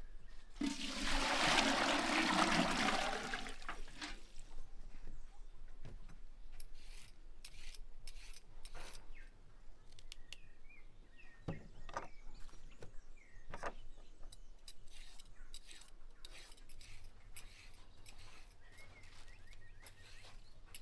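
Water poured into a large aluminium pot for about three seconds near the start. Then a vegetable peeler scraping ribbons off a carrot over a wooden cutting board, in repeated short strokes.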